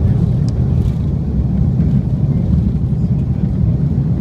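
Cabin noise of an Airbus A330 on its takeoff roll, heard from a seat over the wing: a loud, steady low rumble from the engines at takeoff power and the aircraft running down the runway.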